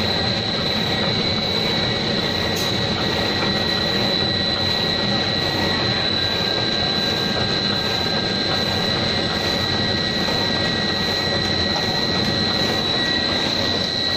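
Pet-food extrusion line machinery running: a loud, steady factory drone with a constant high whine over it.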